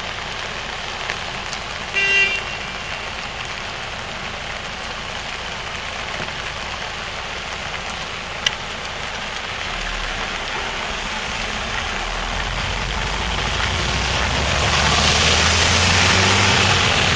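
Steady rain falling on a clear plastic bike umbrella canopy, with city traffic around it. A short horn toot sounds about two seconds in, and passing traffic swells louder over the last several seconds.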